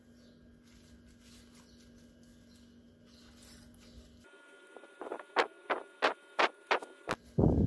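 Crisp fresh lettuce leaves crackling and crunching as hands press and fold them onto toast: about six sharp crackles in quick succession, then a louder, lower rustle near the end. Before that, only a faint steady hum.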